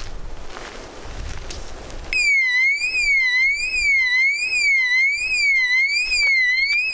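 Solar-rechargeable infrared motion-sensor camping alarm going off about two seconds in. It is a loud electronic siren wailing up and down in pitch about one and a half times a second, set off by a person walking upright into its sensor beam. Before it starts there is faint wind and rustling.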